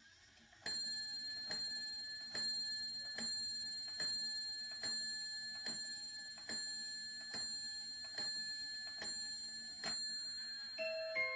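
Cuckoo clock's bell striking the hour: about twelve evenly spaced strokes, a little under one a second, each ringing and fading before the next. Near the end a tinkling chime tune begins.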